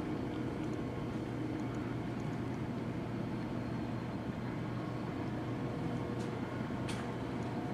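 Steady low background hum with a faint held tone, and a couple of faint clicks near the end.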